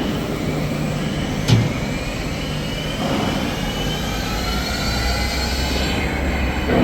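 4-axis CNC fettling machine working on a cast hub: steady machine noise with a sharp click about 1.5 seconds in, and a whine that slowly rises in pitch from about halfway through.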